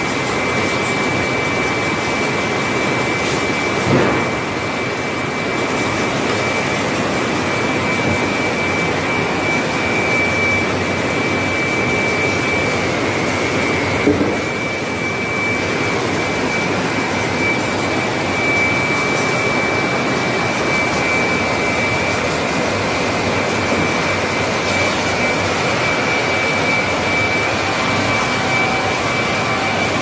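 Circular-saw sawmill line running: saw motors and chain feed conveyor make a steady roar with a constant high whine, with a knock about 4 seconds in and another about 14 seconds in.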